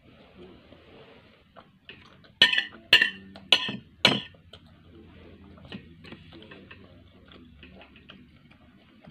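Metal knife and fork clinking against a dinner plate: four sharp clicks about half a second apart, then fainter scraping and handling sounds.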